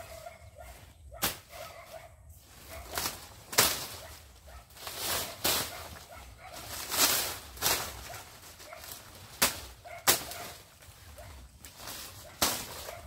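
Undergrowth and dry banana leaves being pushed through and brushed, heard as about ten sharp, crisp rustles and snaps, irregularly spaced, with a couple of longer swishes in the middle.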